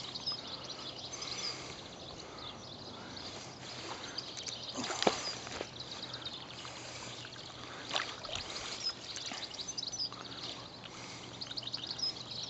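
Water lapping and trickling close to the microphone, which is held just at the river's surface, with two sharper splashes about five and eight seconds in.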